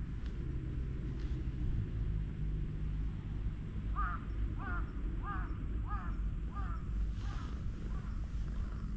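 A bird calls about seven times in quick succession starting about four seconds in, short rising-and-falling calls a little over half a second apart, over a steady low rumble.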